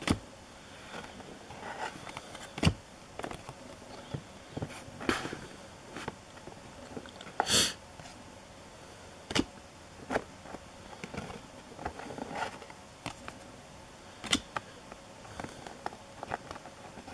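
2018-19 Panini NBA Hoops basketball cards being handled and swapped one by one: scattered short taps and clicks every second or two, with one brief, louder rustle about halfway through.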